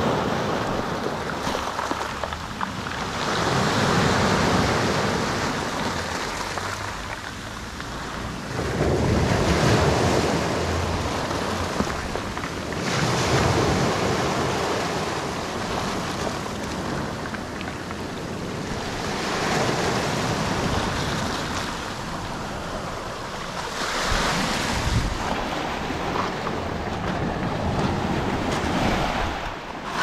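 Small sea waves breaking and washing up a pebble beach, the surf swelling and ebbing about every five seconds.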